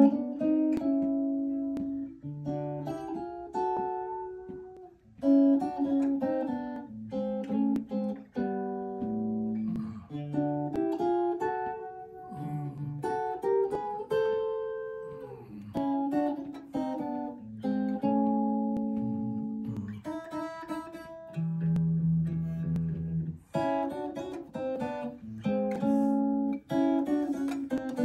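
Solo Stratocaster-style electric guitar played with a clean tone: chords and single-note phrases, each left to ring out, with short gaps between them. A long low note rings for a couple of seconds about three quarters of the way through.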